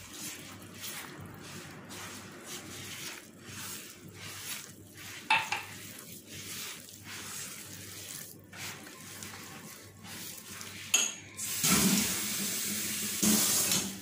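Hands rubbing and mixing flour and semolina with oil and milk against a glazed clay dish: soft, irregular scraping strokes. About two thirds of the way in there is a click, then a louder steady rush of running water for about two seconds.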